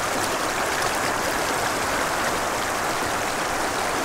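Shallow mountain stream rushing over rocks in a riffle, a steady, even rush of water.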